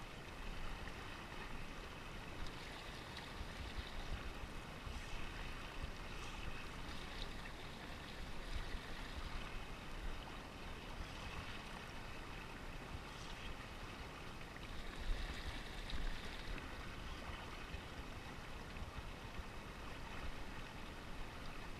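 Steady wind and water noise: rippling water lapping against a small inflatable pontoon boat, with a low rumble of wind on the microphone.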